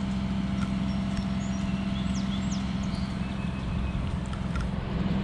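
Steady, unchanging engine drone of heavy demolition machinery, the excavator working at the site. A few faint high chirps come through around the middle.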